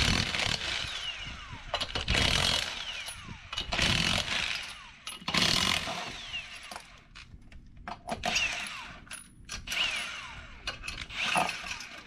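A 3/4-inch impact wrench hammering a car's wheel lug nuts loose, in about seven bursts. The first four last about a second each and are the loudest. The last three are shorter and quieter.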